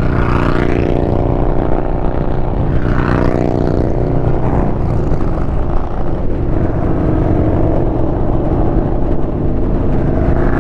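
Yamaha Bolt's air-cooled V-twin engine running at a steady cruising speed under wind rush.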